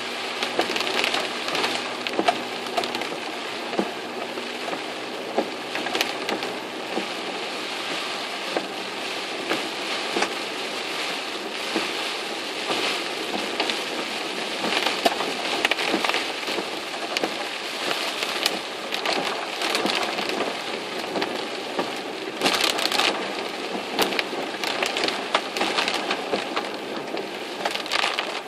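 Heavy typhoon rain pelting a car's roof and windshield, heard from inside the moving car as a dense patter of drops that swells in gusts, over a faint low steady drone.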